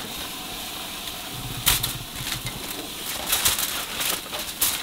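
Aluminium foil crinkling and rustling in a few sharp crackles as grilled steaks are laid on it and the foil is handled, with a cluster of crackles in the second half.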